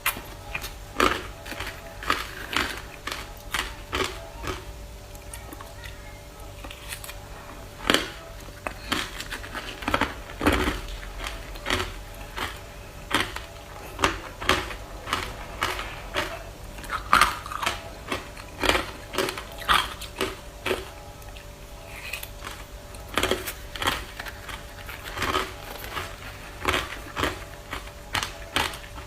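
Ice being bitten and crunched close to the microphone: a stream of sharp, irregular crunches, about one or two a second, over a faint steady hum.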